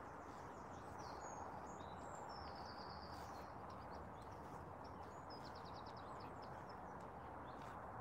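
Steady rush of river water flowing, with small birds chirping high above it and a short rapid trill of notes about five and a half seconds in.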